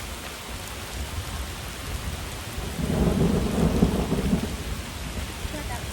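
A thunderclap rumbling for about a second and a half, starting about three seconds in, over steady rain.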